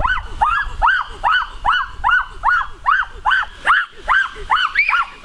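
A young animal calling over and over: short high chirping yelps, each rising and falling in pitch, about three a second without a break.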